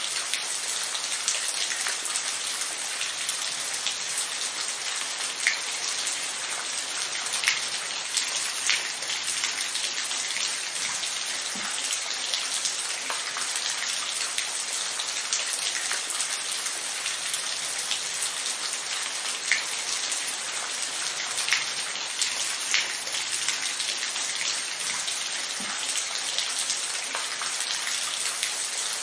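Steady rain falling, a continuous hiss with individual drops ticking sharply on a surface every second or so.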